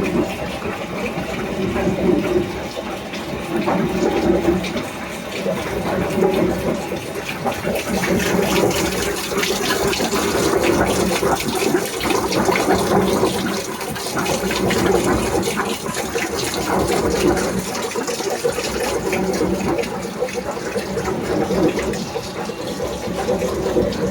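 Gear hobbing machine cutting gear teeth, with cutting fluid splashing over the work: a steady rushing, splashing noise that swells and eases every couple of seconds.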